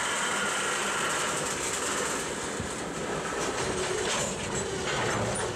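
Freight train cars rolling past on steel rails: a steady rumble of wheels on track with some clicking, and a faint wheel squeal coming in near the end.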